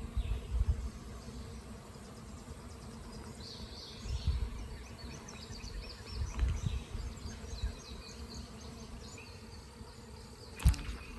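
Honeybee swarm buzzing steadily, thousands of bees clustered and flying, with a few low rumbles and one sharp knock near the end.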